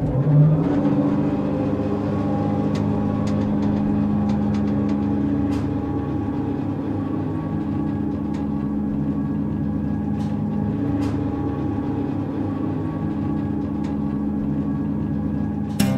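Background music: a sustained low droning pad with a few faint ticks over it, changing to strummed guitar music right at the end.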